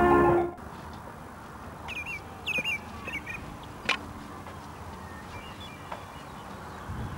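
Background music cuts off about half a second in. Then, against an open-air background, a bird gives a few short chirps around two to three seconds in, and a single sharp click follows near four seconds.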